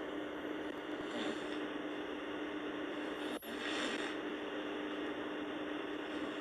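A sleeping person breathing in soft snores, one about every three seconds, over a steady hum and hiss. A brief click falls about halfway through.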